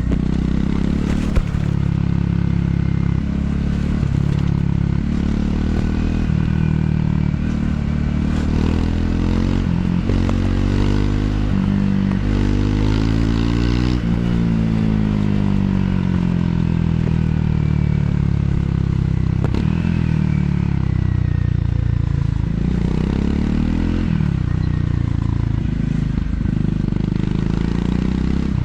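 Triumph Scrambler 400 X's single-cylinder engine through its stock exhaust while riding, its pitch climbing steadily for several seconds in the middle, then falling away, and rising again briefly near the end, with wind noise over it. A single sharp click about a second and a half in.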